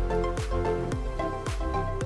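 Background music with a steady beat, about two low drum thumps a second, under sustained pitched chords and a melody.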